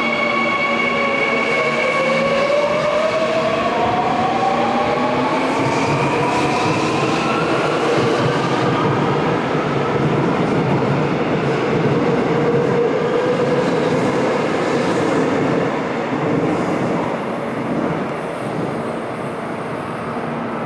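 Seoul Metro Line 3 subway train departing an underground platform: its traction motors whine and rise steadily in pitch as it picks up speed, over the running noise of the wheels and cars passing close by. The sound eases off after about sixteen seconds as the train's tail goes into the tunnel.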